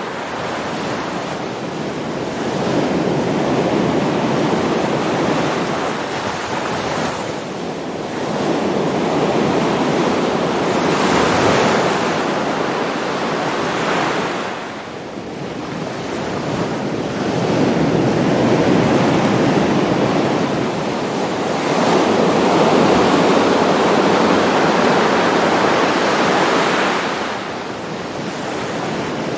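Ocean waves breaking, a steady wash of surf that swells and fades every few seconds.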